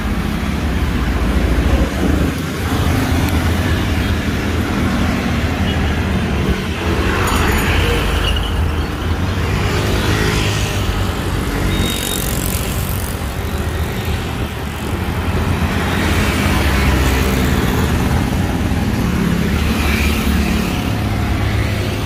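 Road traffic on a busy multi-lane road: a steady rumble of engines and tyres, with vehicles passing now and then.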